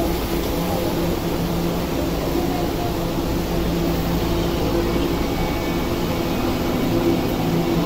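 Tokyo Metro Ginza Line 1000 series train pulling out of an underground platform: a steady hum from its motors over a low rumble of wheels as it gets moving.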